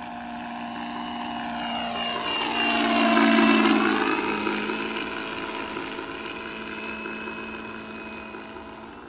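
Benedini sound module in a radio-controlled P-51 Mustang model playing a simulated Rolls-Royce Merlin engine through overdriven, saturating speakers as the model flies past. It grows louder to a peak about three and a half seconds in, the pitch drops as it passes, and then it fades away.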